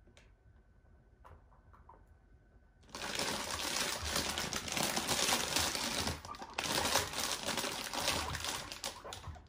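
A plastic salad bag crinkling loudly and without a break, starting about three seconds in: the packaging sound the guinea pigs know means fresh greens are coming. Before it come a few faint light taps.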